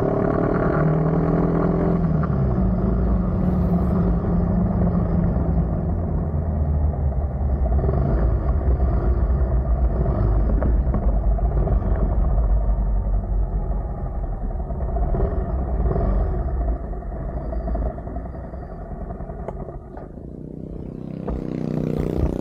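Motorcycle engine running under way, with heavy wind and road rumble. It eases off and quietens toward the end as the bike slows.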